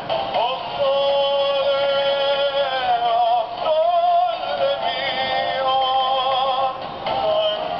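Singing plush gondolier dog toy playing its recorded song: a singing voice holding long notes over a melody.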